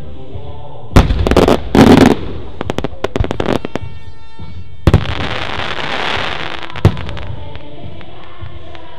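Aerial firework shells bursting over music: loud reports about a second and two seconds in, then a run of crackling pops. Another big bang comes near the middle, followed by a long crackling hiss, and a single sharp bang about two seconds later.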